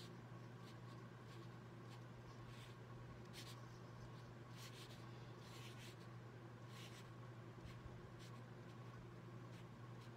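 Faint scratching of a black felt-tip pen drawing short strokes on watercolour paper, a stroke about once a second, over a steady low hum.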